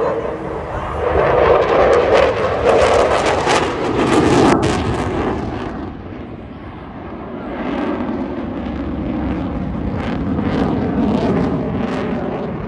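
Eurofighter Typhoon fast jet flying a display pass, its twin jet engines giving a loud, crackling rumble. The sound swells to a peak in the first few seconds, eases about six seconds in, then builds again.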